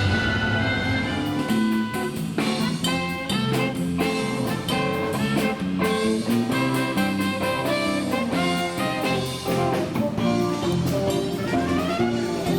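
Upbeat jazzy background music with brass and a drum kit, swing-style, with a steady beat.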